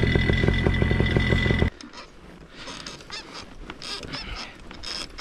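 Paramotor engine and propeller running with an even pulsing beat and a steady high whine, cutting off abruptly a little under two seconds in. After that there is only faint rustling and light clicks.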